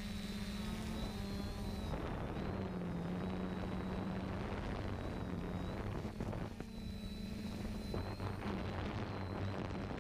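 3DR Solo quadcopter's motors and propellers running in flight: a steady low hum with a thin high whine above it, the pitch wavering slightly as the drone manoeuvres.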